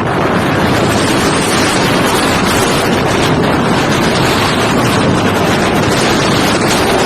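Strong storm wind blasting across the microphone: loud, continuous wind noise without a break.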